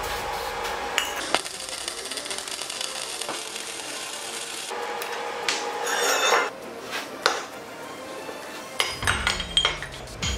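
Aerosol welding anti-spatter spray hissing for about three seconds. About six seconds in there is a brief MIG tack weld, followed near the end by metal clinks and knocks as the steel parts and bottle jack are handled, over background music.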